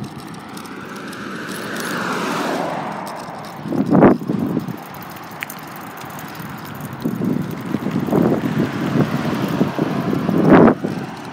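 Wind buffeting the microphone and tyre noise while riding an electric bicycle along a road. A car goes by about two seconds in, and two louder gusts of wind buffeting come a little before the middle and near the end.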